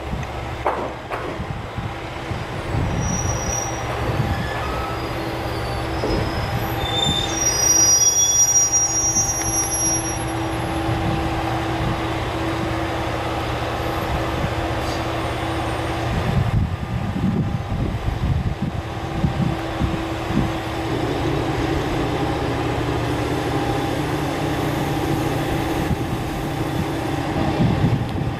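Diesel railcar running, with a steady engine drone over the rumble of the wheels. High-pitched wheel squeal rises over it from about three to ten seconds in, as on a curve. The drone changes pitch about three-quarters of the way through.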